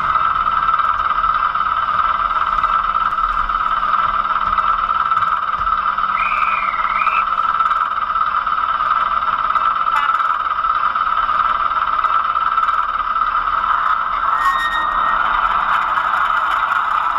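Sound-fitted OO gauge model diesel multiple unit idling at the platform, its engine sound coming thin from a tiny onboard speaker as a steady hum. A short wavering chirp comes about six seconds in and a brief high beep a little before the end.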